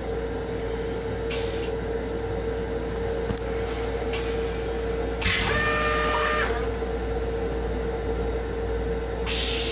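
Steady hum with a constant tone inside a Metro-North M7 railcar's restroom. About five seconds in comes a loud hiss lasting about a second with a faint whistle in it, and shorter hisses come near the start and the end.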